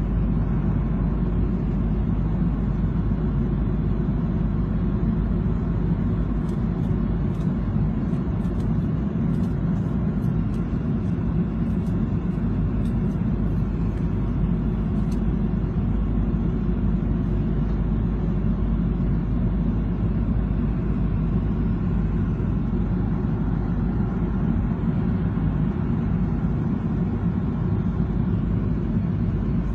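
Steady low drone inside an airliner's passenger cabin in flight: engine and airflow noise, even and unbroken.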